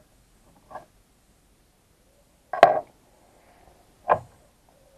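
Metal tools and workpiece knocking at a bench vise after tapping. A faint click comes first, then a loud sharp clank with a brief ring, then a second clank about a second and a half later.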